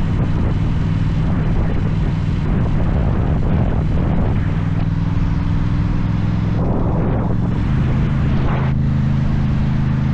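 Aprilia Tuono 660's parallel-twin engine running through an aftermarket slip-on exhaust, a steady loud note whose pitch shifts a few times.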